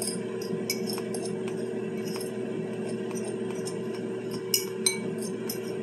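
Metal fork stirring a tuna and cheese mixture in a ceramic bowl: light, scattered clinks and scrapes of the fork against the bowl, over a steady hum.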